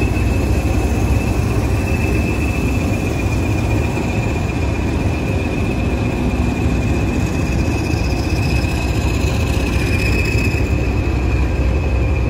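A pair of Class 20 diesel-electric locomotives passing slowly at close range, their English Electric engines running with a low, steady rumble. Over it the wheel flanges give a steady high squeal on the rails.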